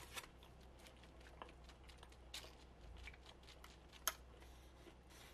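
Near silence with faint scattered clicks and crunches from crinkle-cut fries being picked up and chewed, and one sharper click about four seconds in.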